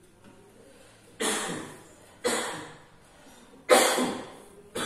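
A person coughing four times, about a second apart, each cough sharp at the start and fading quickly.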